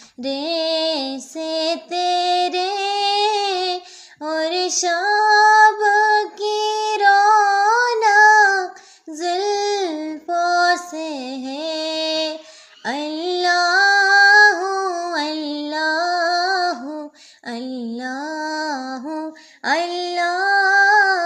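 A single high voice singing a naat, an Islamic devotional song, without instruments. The phrases rise and fall and are broken by short pauses for breath.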